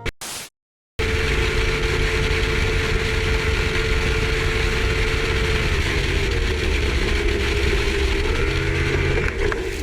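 A brief whoosh, a moment of silence, then an engine running steadily with a deep rumble and a steady hum that shifts slightly in pitch a little past halfway.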